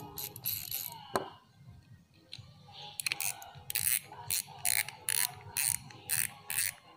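Daido Daimos Pro Series 6000 spinning reel's mechanism clicking and ratcheting as it is worked by hand. There are a few single clicks at first, then from about three seconds in a regular run of short clicking bursts, about two a second.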